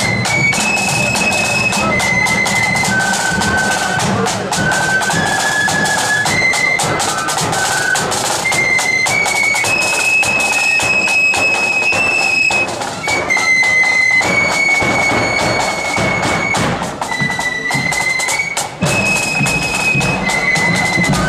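Marching flute band playing a tune in unison on flutes, a high melody of held notes, with side drums and a bass drum beating time.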